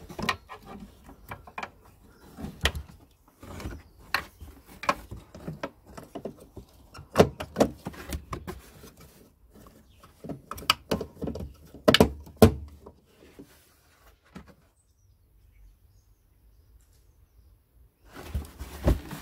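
Hard plastic clicks and knocks as a Peugeot 307 rear light's bulb holder is pushed and clipped into place and its wiring plug is pushed on. The clicking stops for a few seconds, then a short burst of handling noise comes near the end.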